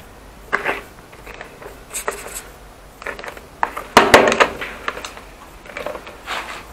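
Irregular scrapes, rustles and knocks as a hand handles a dusty plastic binder amid rubble on a concrete floor, loudest about four seconds in.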